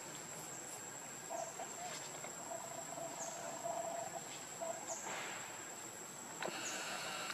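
Forest ambience: an insect drone holding one high, steady pitch, with short falling chirps about once a second. Two soft rustles come near the end.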